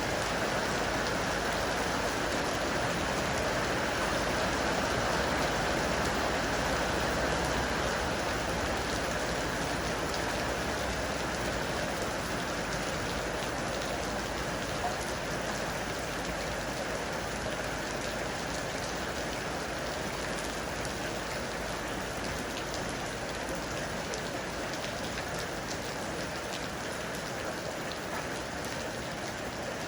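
Heavy rain falling steadily and hitting hard surfaces, a dense even hiss that eases slightly after the first several seconds.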